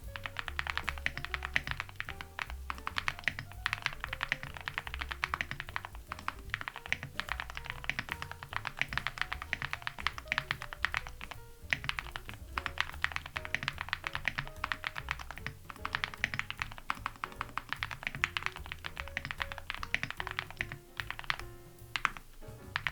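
Fast, continuous typing on an Owlab Link65 mechanical keyboard with Gateron Moon Landing switches, an aluminium plate, full foam and dye-sub PBT keycaps: a dense stream of keystroke clacks with a few brief pauses. Background music with a walking bass line plays underneath.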